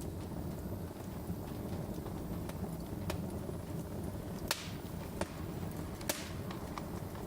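Wood fire crackling in a fireplace: a steady low rumble of burning with scattered sharp pops, the loudest about four and a half and six seconds in.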